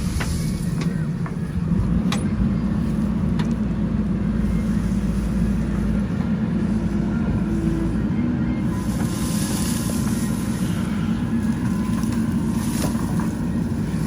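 A JCB 3DX Super backhoe loader's diesel engine running steadily under digging load, with a couple of sharp knocks.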